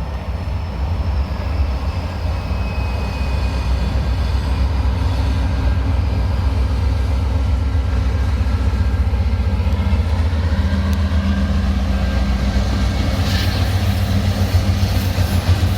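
Union Pacific freight train's diesel locomotives running past close by: a heavy, steady low engine rumble that grows louder over the first few seconds.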